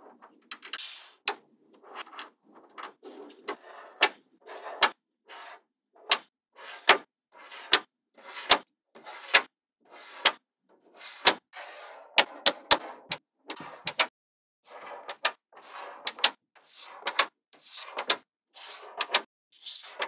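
Small magnetic balls snapping onto one another with sharp, irregular clicks, about one or two a second, and short scraping rattles between snaps as the balls are handled and rolled into place.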